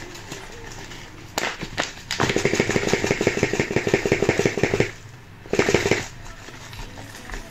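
Dry oats shaken out of a package into a bowl on a kitchen scale: a fast, even rattle lasting about two and a half seconds, then a second short burst, as the amount is topped up towards 50 grams.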